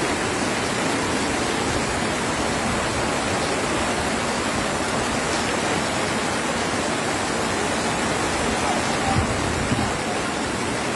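Torrent of muddy flash-flood water rushing past in a steady, loud roar of noise, with two faint knocks about nine seconds in.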